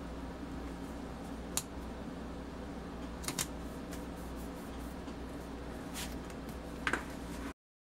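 Faint, scattered clicks and taps of paper stickers being handled and pressed onto a spiral-bound planner page, with the page flipped over near the end, against a steady low hum. All sound cuts off abruptly just before the end.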